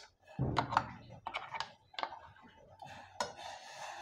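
Steel ladle scraping ground masala paste out of a mixer jar and clicking against the jar and the pressure-cooker rim, with a soft thud as a dollop drops into the boiling chickpeas about half a second in. Near the end a light steady scraping starts as the ladle stirs the pot.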